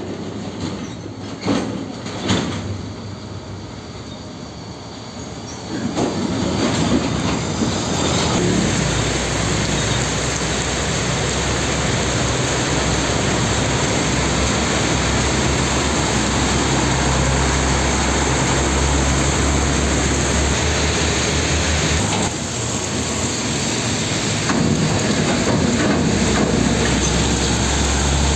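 Large diesel trucks driving past, with a few sharp knocks in the first seconds. From about six seconds in, a steady loud hiss of heavy rain and tyres on a flooded road, with low diesel engine rumble beneath.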